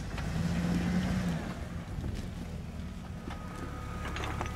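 Jeep engine running at low crawling speed as the vehicle climbs over rocks, its note briefly stronger for about a second near the start. A few sharp clicks and knocks, mostly near the end.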